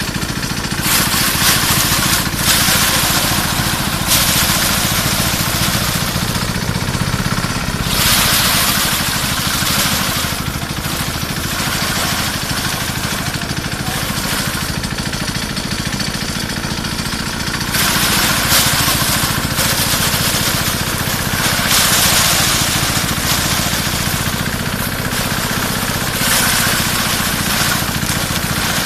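A small engine running steadily, with a rushing noise that swells and fades every few seconds.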